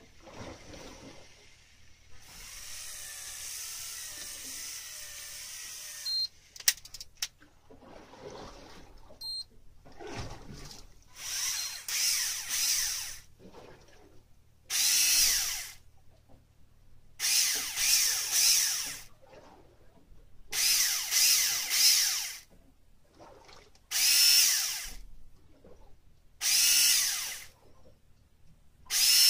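Electric fishing reel's motor winding line in a run of short bursts, each a second or two long and about every three seconds, starting with a brief rising whine. The bursts begin about a third of the way in, after a few seconds of steadier hiss and a couple of clicks.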